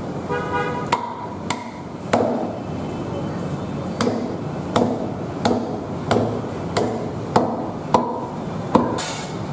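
Cleaver chopping through softshell turtle meat and shell on a thick wooden chopping block: about eleven sharp chops, roughly one every two-thirds of a second.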